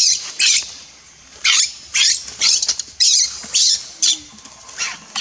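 Baby macaque squealing in short, high-pitched cries, about two a second, with a brief pause about a second in.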